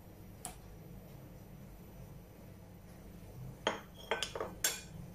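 A spoon clinking against the pot while stirring: one light clink about half a second in, then a quick run of four or five clinks near the end.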